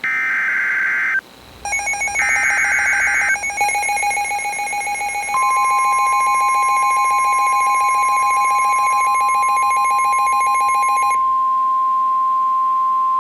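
Emergency Alert System data bursts from a SAME header, a raspy digital screech, twice. From about a second and a half in, a buzzy, pulsing EAS attention tone sounds, and from about five seconds in the steady NOAA Weather Radio 1050 Hz warning alarm tone joins it and carries on alone after the buzzy tone stops about eleven seconds in: the alert tones that announce a new warning.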